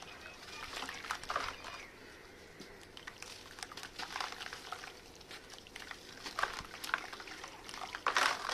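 Red sand crumbling and crunching, in a string of soft crackles and small clicks with a few louder crunches.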